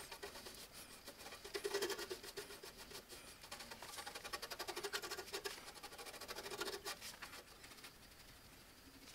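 Faint scratching of a cheap chip brush's bristles stroking epoxy primer onto sheet metal, in three spells of quick back-and-forth strokes that die away near the end.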